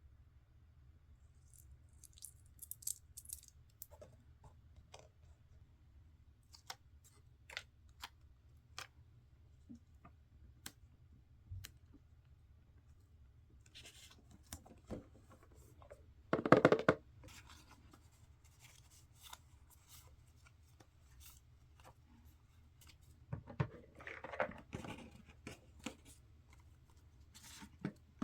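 Paper and stationery being handled for a scrapbook page: scattered light taps and clicks, a loud brief rustle about sixteen seconds in, and more rustling near the end, over a steady low hum.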